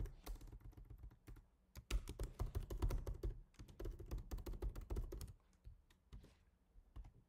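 Typing on a computer keyboard: fast runs of key clicks, with a short pause about a second and a half in and only a few scattered keystrokes near the end.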